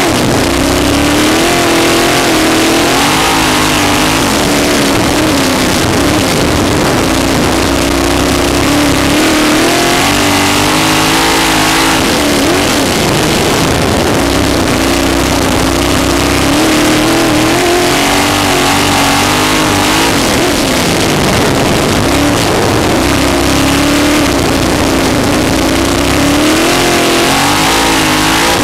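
Sprint car engine heard from the cockpit at racing speed, its pitch climbing and dropping in waves about every eight seconds as it runs down the straights and backs off for the turns, over a constant rushing noise.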